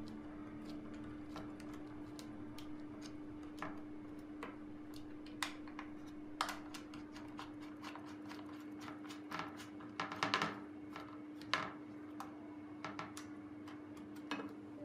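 Scattered light clicks and taps, with a small cluster about two thirds of the way through, over a steady faint hum: small parts and hardware being handled during assembly.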